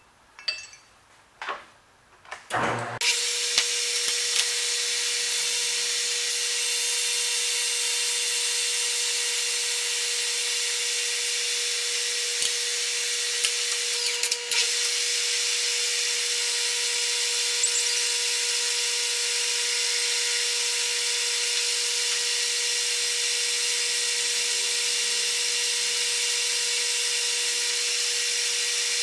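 A few light handling knocks, then about three seconds in a metal lathe starts up and runs steadily, its tool facing across a spinning aluminium disc: a steady hiss of cutting over a constant mid-pitched hum from the machine. A couple of brief knocks come about halfway through.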